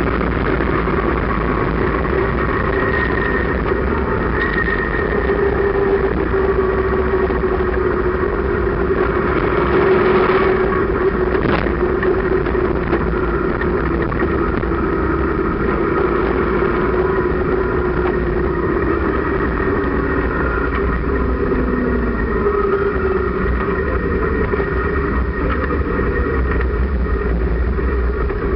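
Sidecar motorcycle's engine running on the road, with wind rushing over the microphone; the engine note wavers with speed and drops about two-thirds of the way through as the rig slows.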